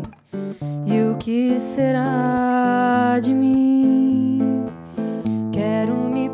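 Acoustic guitar being plucked and strummed in a slow song, with a woman's voice singing long held notes over it.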